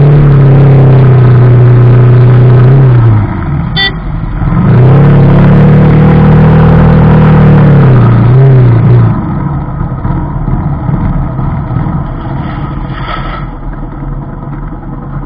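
Yamaha Vixion Advance's 150 cc single-cylinder engine through a B-Pro5 Alpha Edition aftermarket exhaust, held loud at steady revs twice: about three seconds, a brief let-off, then about four seconds, each rising as the throttle opens and falling as it closes. After about nine seconds it drops to a quieter, rougher run. A short high beep sounds about four seconds in.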